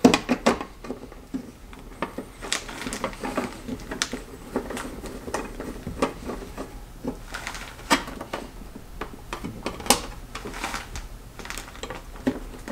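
Small screwdriver turning the screws of a plastic wall switch plate, with irregular clicks and short scrapes as the tip works in the screw slots and the plate is handled.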